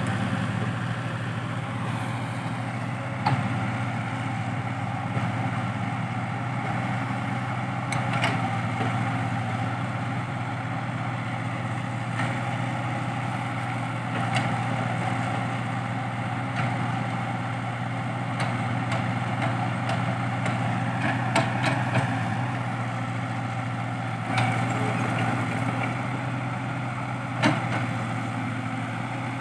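Heavy diesel machinery running at a steady pitch, with scattered short knocks and clanks from time to time, the loudest near the end.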